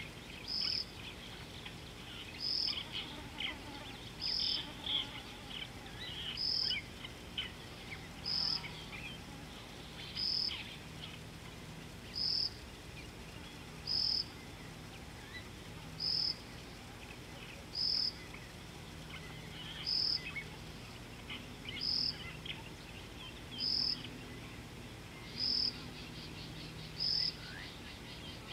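An insect calling with a short, high trill repeated very evenly about every two seconds, over scattered bird chirps.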